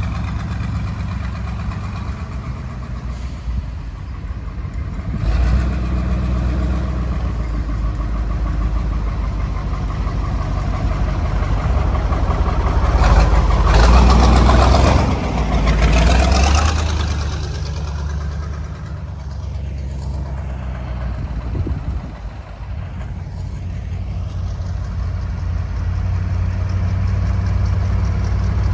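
Truck engine running steadily with a low drone while on the move, growing louder for a few seconds about halfway through before settling again.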